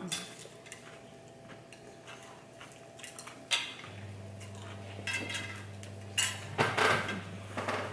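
Metal fork clinking and scraping on a ceramic plate, in scattered short clicks during a meal. A low steady hum starts about four seconds in.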